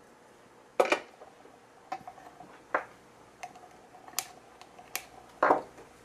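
A series of sharp clicks and taps, about seven in all, from handling a small circuit board and its parts at the workbench. The loudest come about a second in and near the end.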